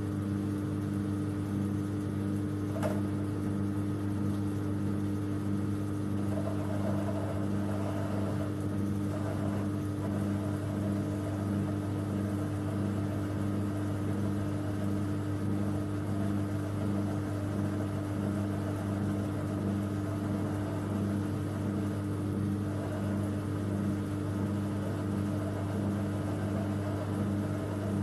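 Old Schaublin lathe running steadily under light load as a high-speed steel tool faces the end of a bolt held in a collet: a constant motor-and-drive hum with a regular pulsing beat. A single sharp click about three seconds in.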